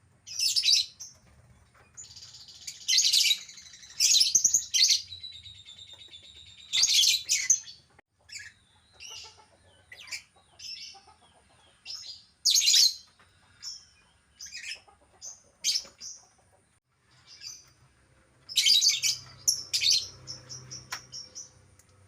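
Lovebirds chirping: loud bursts of high-pitched chattering every few seconds, with short single chirps in between.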